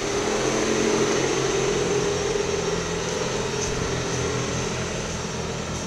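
Belgian HLE 11 electric locomotive departing and going past close by in an underground station: a loud, steady drone with a strong mid-pitched hum over rumble. It starts suddenly as the locomotive comes level and eases slightly toward the end.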